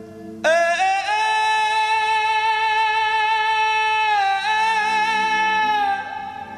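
Music: a single high note with many overtones enters sharply about half a second in, glides up onto its pitch and is held for about five seconds, dipping slightly near the four-second mark, over quieter lower sustained tones.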